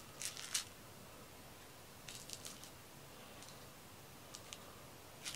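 Faint rustles and light scratches from play with a cat teaser wand. A short cluster comes right at the start, another about two seconds in, then a few soft ticks.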